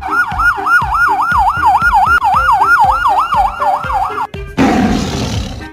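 Fast up-and-down police siren, about four rises and falls a second, over background music with a steady beat. It cuts off about four seconds in and is followed by a short, harsh, noisy burst.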